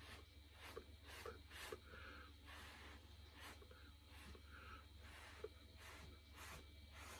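Short puffs of breath blown through a drinking straw onto wet acrylic paint, coming at irregular intervals about once or twice a second, to push the paint into flame shapes.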